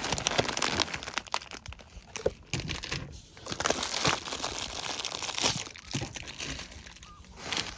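Packaging crinkling and rustling as food packets are handled and taken out of a parcel by hand, irregular, with short lulls about three seconds in and near the end.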